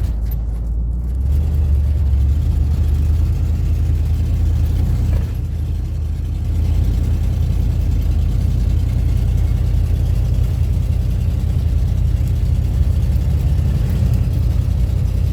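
Car driving along, heard from inside the cabin: a steady low engine and road rumble. The engine note rises slightly about a second in.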